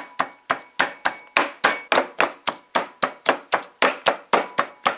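Granite mortar and pestle pounding garlic cloves, thyme leaves and hot pepper: steady strikes of stone on stone, about four a second, with a faint ring from the mortar.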